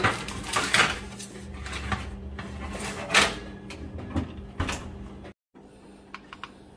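Metal sheet pan scraping and clanking as it is slid onto the wire rack of an electric oven, then the oven door being swung shut. After a sudden break, a few faint light clicks follow near the end.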